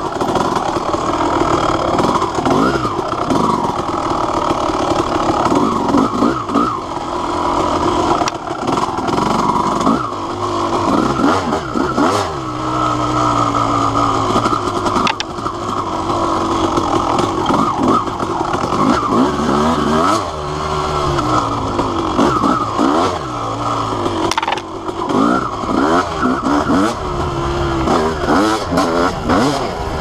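Honda CR250R single-cylinder two-stroke dirt bike engine being ridden hard, revving up and falling back over and over as the throttle is worked.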